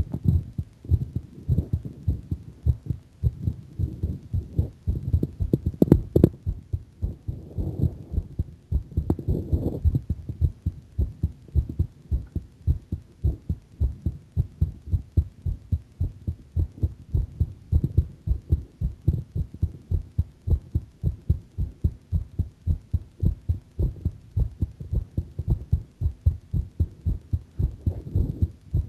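A woman's heartbeat, picked up close to the chest: an even run of low lub-dub thuds at a slightly quickened rate, with one louder knock about six seconds in.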